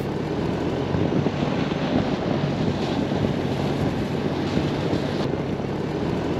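A two-door Ford Bronco's engine running as the vehicle moves across snow: a steady low drone under wind buffeting the microphone.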